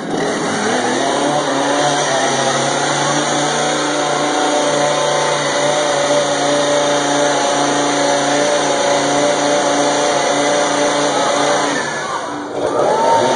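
Chainsaw engine running steadily with a loud, even note that shifts a little in pitch, dipping briefly about twelve seconds in and then coming back up.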